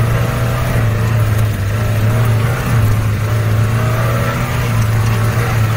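Open Maruti Gypsy jeep's engine running steadily under load, pulling the jeep over a steep bare rock slope, heard from inside the open cabin.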